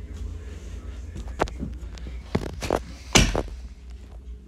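A handful of short knocks and thumps, the loudest about three seconds in, over a steady low rumble.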